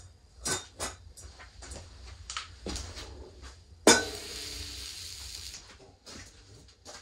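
Cookware being handled: metal pots and dishes clinking and knocking several times, then a sharp metal clank on the woodstove top about four seconds in, followed by a hiss lasting under two seconds.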